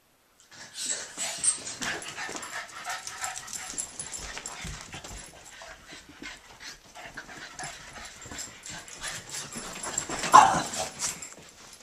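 Boston terriers play-fighting and chasing: dog noises over the scuffles and clicks of paws. One louder dog cry comes about ten seconds in.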